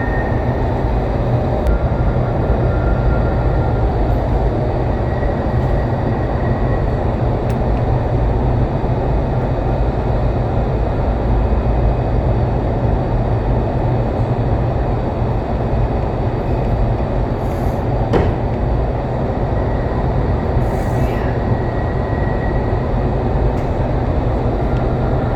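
Vertical wind tunnel for indoor skydiving running, a loud, steady roar of rushing air driven by its fans.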